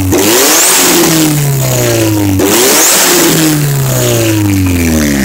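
Turbocharged car engine idling unevenly: its speed jumps up and then sags back slowly, about every two and a half seconds, under a constant hiss. This is the blow-off valve on the intercooler sitting open at idle and venting metered air, which makes the idle hunt.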